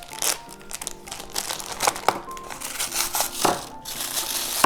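A blind-bag toy package being crinkled and torn open by hand: a run of sharp crinkles and rips, with a few louder tears about a third of a second, two seconds and three and a half seconds in. Soft background music plays under it.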